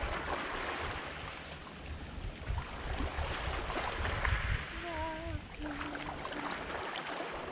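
Wind rumbling on the microphone over the steady wash of sea against a rocky shore. About five seconds in comes a short, wavering call from further off.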